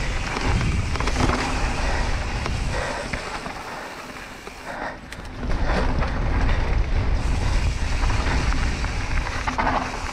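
Wind rushing over the microphone and tyres rolling over a dirt trail, with chain and frame rattle from a Propain Tyee 29-inch enduro mountain bike on rough ground. The rush and rumble drop for a moment around the middle, then build again.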